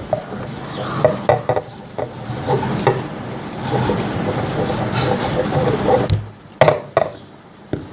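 Slime being squeezed and worked by hand, making a steady run of sticky crackling and popping, with a few sharper pops near the end.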